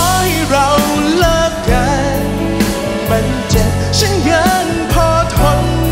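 A man singing into a handheld microphone, holding sustained phrases with vibrato, over live band accompaniment.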